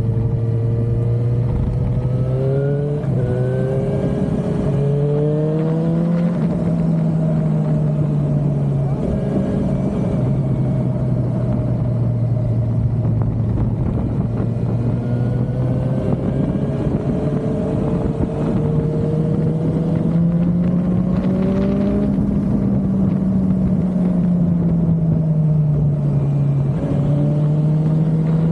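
Suzuki motorcycle engine under way. Its pitch climbs in a few steps through the gears over the first several seconds, then holds steady, and later rises and falls gently with road speed, over a steady rushing noise.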